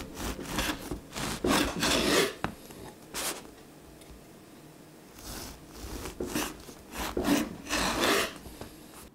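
Sabatier serrated bread knife sawing through a sourdough loaf on a wooden cutting board: a run of rasping back-and-forth strokes, a pause of about two seconds near the middle, then a second run of strokes for the next slice.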